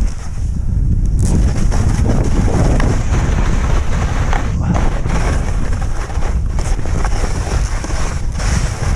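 Wind buffeting the microphone of a skier's action camera during a downhill run, a loud, steady low rumble, with the skis sliding over the snow underneath.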